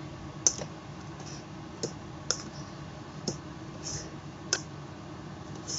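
Plastic rice paddle stirring and scooping half-cooked glutinous rice in a rice cooker's inner pot: irregular light clicks and taps as the paddle knocks the pot, with short soft scrapes through the sticky rice.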